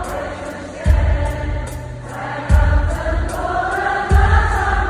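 Arena concert audience of thousands singing along with the band in unison, over a heavy drum hit that lands about every second and a half.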